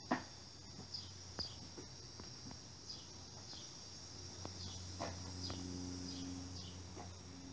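Quiet outdoor ambience of short, high chirps falling slightly in pitch, repeating irregularly once or twice a second over a faint steady low hum. A single sharp click right at the start and a few faint taps.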